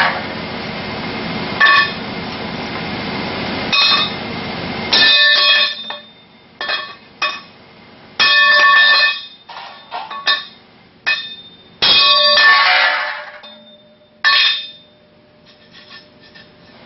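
A hammer striking aluminum bracing about a dozen times at uneven intervals, each blow a sharp metallic clang, the heavier ones ringing on for most of a second. The blows are denting and bowing the metal.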